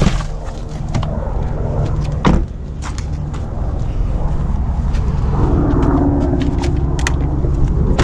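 A car door shutting with a single thump about two seconds in, over a steady low rumble, with scattered light clicks.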